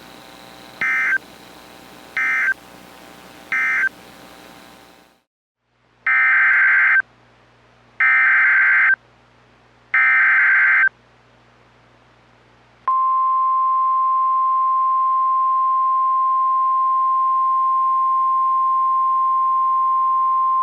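NOAA Weather Radio emergency alert data and alarm. Three short SAME end-of-message data bursts close the previous message. After a brief silence come three one-second SAME header data bursts, buzzing digital tones for the new alert. About 13 seconds in, the steady 1050 Hz weather radio warning alarm tone starts and holds, signalling a new warning.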